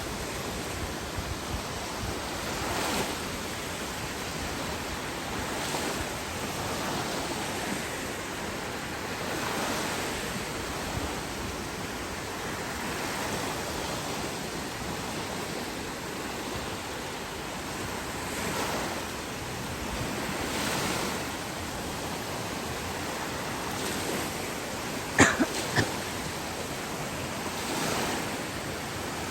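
Ocean surf breaking and washing onto a beach: a steady rush of water that swells every few seconds. About 25 seconds in, a brief, sharp, louder sound cuts through, followed by two smaller ones.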